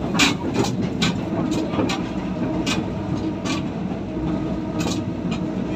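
Diesel multiple unit train running along the track, heard on board: a steady low engine drone and rumble with irregular sharp clicks and knocks from the wheels and car body.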